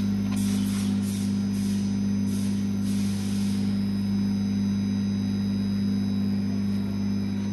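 Steady low electric machine hum. For the first three or four seconds, a rhythmic high ticking of about two or three strokes a second runs over it, then stops.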